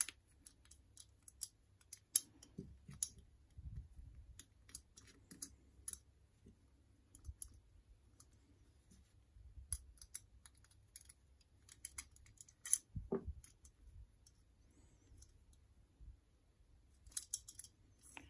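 Faint, scattered metallic clicks and ticks of a flathead screwdriver bit turned by hand, backing the mixture screw out of a Harley Davidson Keihin CV carburetor's aluminium body. There is a duller knock about thirteen seconds in, and a quick run of clicks near the end.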